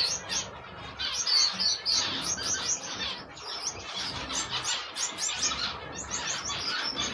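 Gouldian finch chicks giving hungry begging calls at feeding time: a dense run of short, high-pitched chirps, several a second, with brief lulls.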